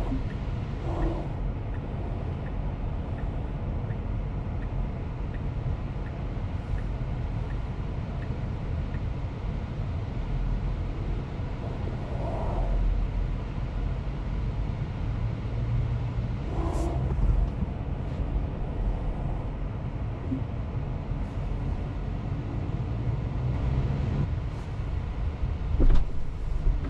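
Steady low rumble of a car cabin's ambience, with a few faint short sounds from outside and a sharp knock near the end.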